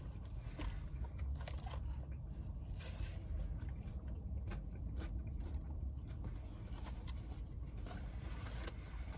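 A person chewing and biting into Wingstop fries close to the microphone, with small crunches and scattered clicky mouth and wrapper noises over a steady low hum.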